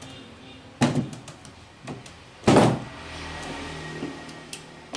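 Two loud knocks about a second and a half apart, with a few lighter clicks, from the hand lever of a manual steel-rule die-making tool being worked.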